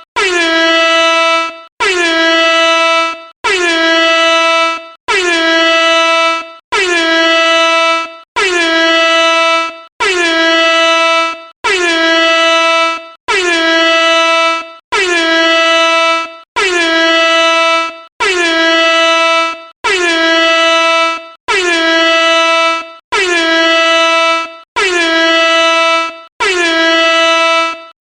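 Air horn sounding in a steady series of identical loud blasts, each about a second and a half long with a short drop in pitch at its start, repeating about every 1.6 seconds with a brief gap between blasts.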